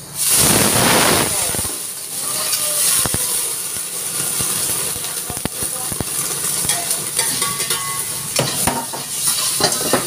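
Food frying in a hot wok over a gas burner: a loud burst of sizzling about half a second in, settling into a steady sizzle. Scattered sharp knocks and scrapes of a utensil against the wok run through it.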